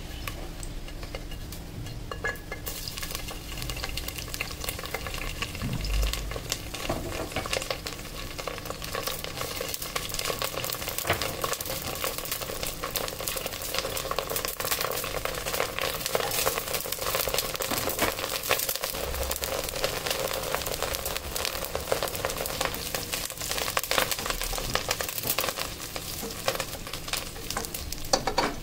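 Curry leaves and red chillies frying in hot oil in a stainless steel pressure cooker: a dense sizzle full of small spits and crackles that starts abruptly about two and a half seconds in as they hit the oil, with a spatula stirring through them.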